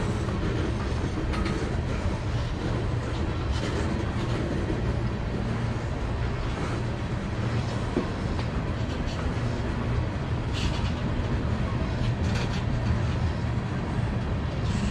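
Freight train rolling past with a steady low rumble and a clickety-clack of wheels on the rails, with a few brief sharper sounds among it.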